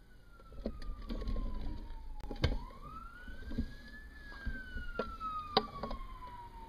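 A wailing siren, its single tone slowly falling and rising in pitch, with a few sharp knocks, the loudest about two and a half and five and a half seconds in.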